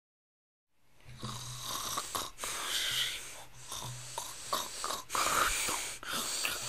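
A person snoring with rough, rasping breaths, starting about a second in.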